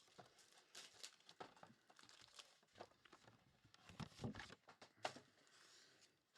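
Faint crinkling and tearing of a trading-card pack wrapper being opened, in short scattered rustles that come thickest around four to five seconds in.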